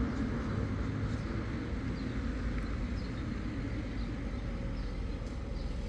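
Street ambience: a steady low rumble of distant traffic, easing off slightly, with a few faint ticks.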